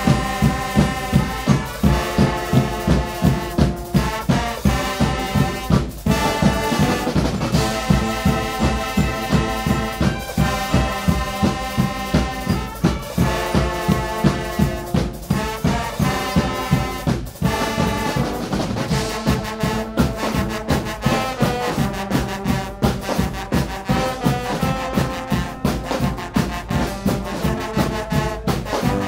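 Guggenmusik brass band playing loudly: trumpets, trombones, tenor horns and sousaphones in full chords over a steady beat of bass drums, snare drums and cymbals, about two beats a second.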